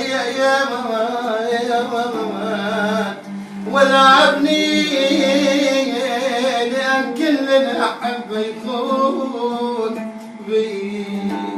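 Male voice singing a wavering, ornamented melody without clear words over a steady held low note, with brief breaths about three seconds in and near the end.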